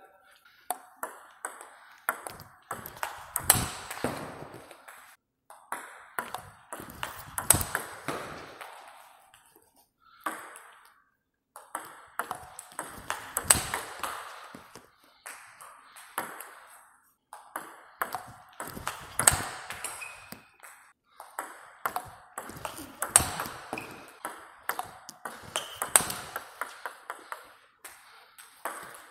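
Table tennis rally: the ball cracking off the bats and clicking on the table in quick alternation during a topspin-against-topspin exchange. There are several rallies, each a few seconds long, with short breaks between them.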